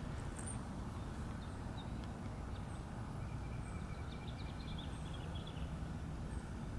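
Small birds chirping outdoors: a short high chirp repeating about once a second, with a brief burst of quick twittering around the middle, over a steady low rumble.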